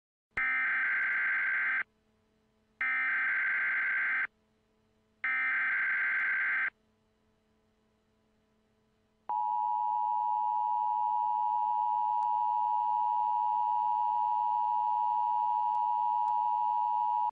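Emergency Alert System SAME header: three bursts of digital data tones, each about a second and a half long with a second's gap between them. About nine seconds in, the EAS attention signal starts: a steady two-tone beep (853 and 960 Hz) that holds to the end, announcing an alert message.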